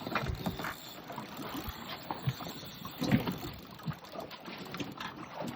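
Background of a fishing boat on open water: steady wind and water noise with scattered knocks and low thumps.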